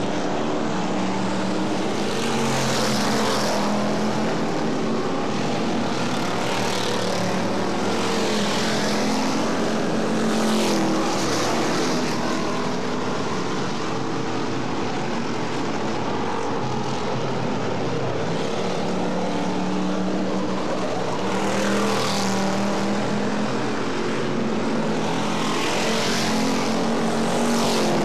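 Dirt-track stock car engines running at racing speed around the oval, their pitch rising and falling, swelling loudest each time a car passes every few seconds.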